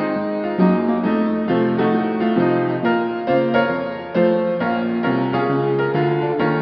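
Background piano music, a steady run of notes struck about every half second.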